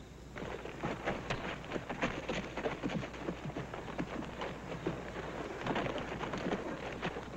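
Hoofbeats of several galloping horses: a dense, irregular clatter that starts about half a second in.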